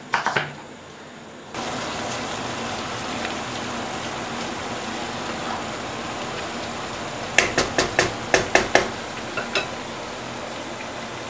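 A couple of knife chops on a wooden chopping board, then a steady sizzle of chopped marrow cooking in a pan on a gas hob while it is stirred with a wooden spatula. Past the middle comes a quick run of sharp knocks, then two or three more.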